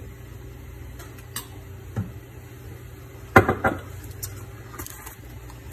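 A few knocks and clatters of kitchenware around a pan on the stove, the loudest a short cluster about three and a half seconds in, over a steady low hum.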